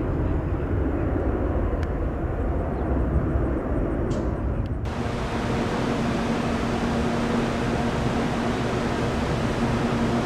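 Jet airliner engines rumbling, low and steady. About five seconds in, the sound cuts off abruptly to a steady hiss with a low hum.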